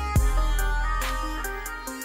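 Background electronic music with a heavy bass note that drops in pitch early on and a steady beat.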